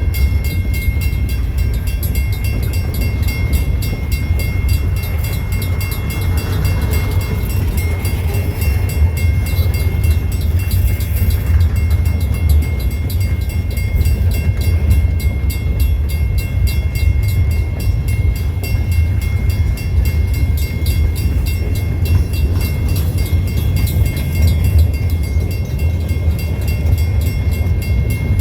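Train rolling past on the rails: a steady heavy low rumble with fine rapid clatter and a thin, steady high-pitched tone over it.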